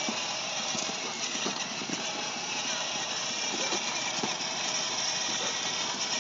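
Child's plastic ride-on toy four-wheeler rolling along a concrete sidewalk: a steady running noise with many small irregular knocks from its hard plastic wheels on the concrete.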